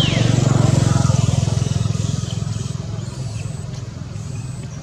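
A motor vehicle engine passing, a low hum that is loudest about a second in and then fades away. A single high whistle slides down in pitch at the very start.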